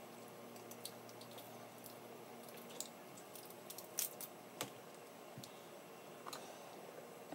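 Snow crab shell being cracked and picked apart by hand: a few scattered sharp clicks and cracks, the loudest about four seconds in.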